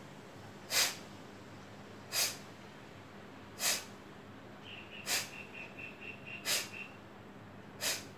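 Six short, sharp, forceful exhalations through the nose, about one and a half seconds apart: Kapalbhati breathing, each breath pushed out by pulling the belly in.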